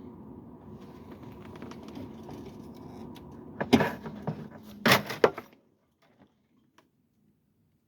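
A gas furnace's blower running with a steady hum, then a few loud knocks and clatters as the unit is handled, and the hum cuts off suddenly about five and a half seconds in as the unit is switched off.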